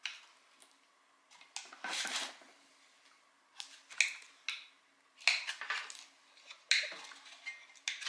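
Parts of a disassembled septic air pump being handled: irregular sharp clicks, taps and short scraping rattles, a few strokes every second or two.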